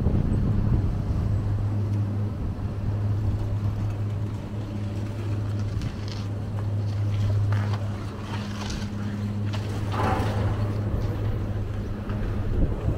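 Detachable gondola lift running: a steady low hum, with a few irregular clacks and rattles about halfway through and again near the end.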